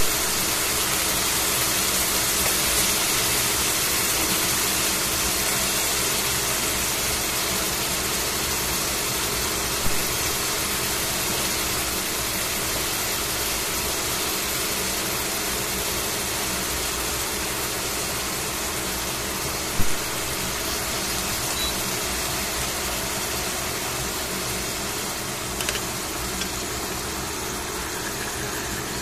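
Rolled thin-sliced beef sizzling in a stainless steel frying pan: a steady hiss of frying fat and moisture, with a short sharp click about ten seconds in and another about twenty seconds in.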